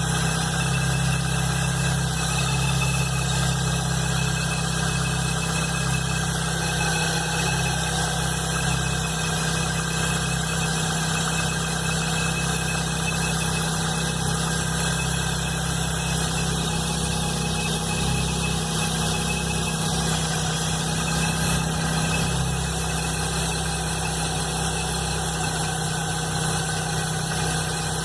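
Chevrolet S10 Blazer engine idling steadily with a loud, unusual noise, a 'barulhão' that began at a cold start the morning after the timing belt and alternator belt were replaced. The owner does not know its cause.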